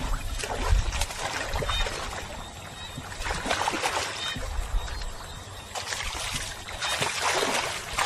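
Water sloshing and splashing in irregular swells, louder at the start and again near the end.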